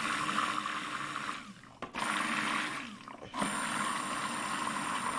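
Stick blender running at its lowest setting in liquid soap batter of oils, goat milk and lye. It runs in three bursts with short pauses between, blending the emulsion toward trace.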